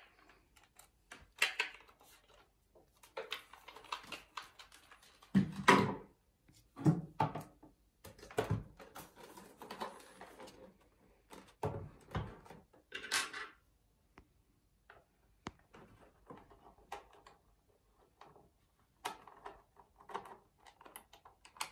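A TDK A73 boombox being handled on a table: irregular knocks, bumps and scraping as it is lifted, turned over and set down, the loudest thumps in the middle. Quieter scattered clicks and taps follow as hands work at a panel on its back.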